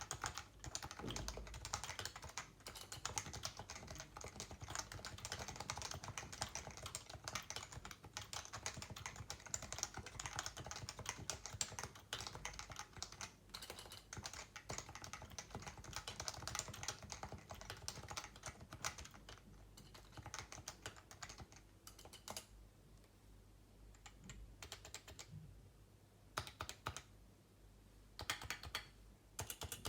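Typing on a Leopold FC660C keyboard with its stock Topre electrostatic capacitive switches: fast, continuous keystrokes that thin out to a few short bursts in the last several seconds.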